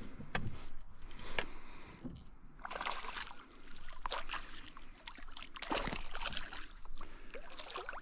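Hooked smallmouth bass splashing at the water's surface beside a kayak as it is reeled in, in several separate bursts of splashing.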